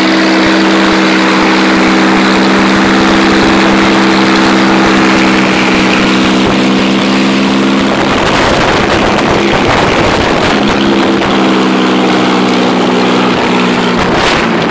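Spitfire replica's piston engine running up on the ground with its cowling off and the propeller turning. It holds a steady, even note for about eight seconds, then the note breaks up and turns rougher as the throttle is worked, steadying again for a couple of seconds before wavering once more near the end.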